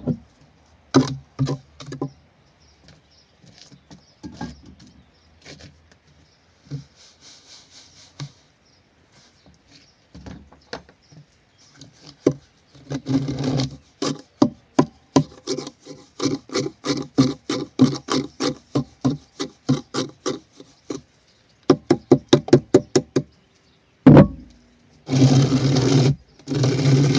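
Steel mason's trowel working mortar in a plywood jig: irregular scrapes, with quick runs of knocks on the wood and louder scraping stretches near the middle and at the end.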